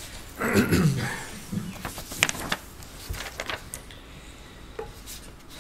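Brief low murmur of a voice, then a few short rustles and clicks of paper being handled close to a handheld microphone.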